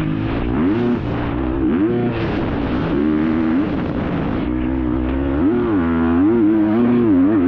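Off-road motorcycle engine heard from a bike-mounted camera, its pitch rising and falling every second or so as the throttle is opened and closed, over a constant rushing noise.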